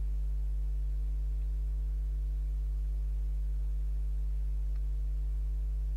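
Steady low electrical hum with a few even overtones, unchanging throughout; the typical mains hum picked up by the recording.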